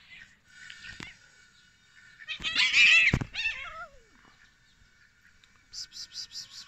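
A cat's loud yowl, a little over two seconds in, lasting about a second and ending in a falling tail.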